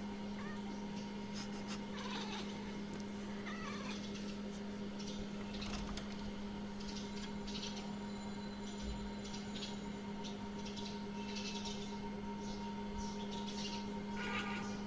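Khao Manee cat making a string of short, high meows.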